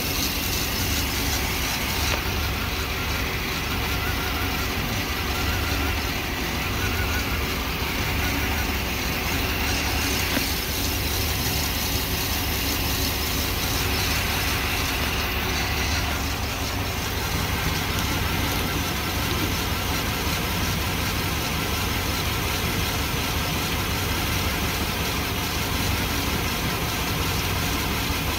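1997 GMC Sierra pickup's engine idling steadily with the hood open, warming up to circulate a radiator flush through the cooling system.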